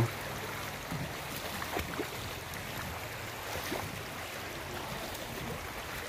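Steady rush of fast-flowing river water, with a few faint clicks scattered through it.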